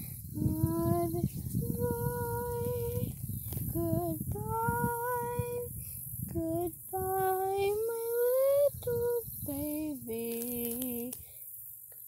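A girl singing a slow, mournful tune in long held notes with short breaks between phrases. Low rustling and handling noise runs underneath.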